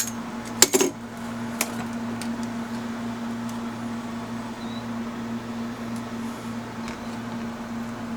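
Steady machine hum with a low, even drone. A few sharp clicks and clinks come in the first two seconds.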